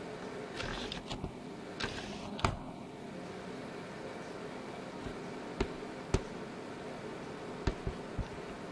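Steady low electrical hum of aquarium equipment. A few short rustling bursts come in the first two seconds, then sharp clicks now and then, the loudest about two and a half and six seconds in.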